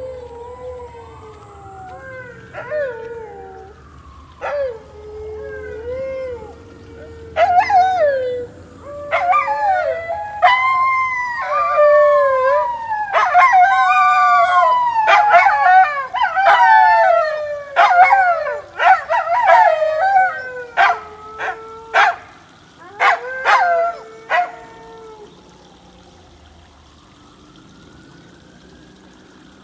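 Several dogs howling together in long gliding, falling howls. The howls swell into a loud overlapping chorus, break into short sharp yelps near the end, then die away.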